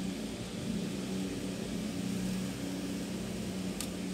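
A steady low mechanical hum over a background hiss, with a single sharp click near the end as the laptop's plastic top case is handled.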